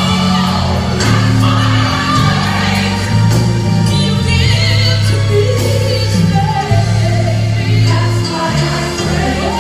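Live gospel music: a small group of female singers over a band with a strong, steady bass line, one voice singing a wavering run about four seconds in.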